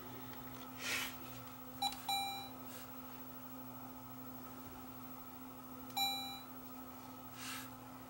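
Sony DCR-TRV340 Digital8 camcorder giving its electronic beeps as its faulty power switch is worked: two short beeps about two seconds in and another about six seconds in. Soft handling rustles come in between.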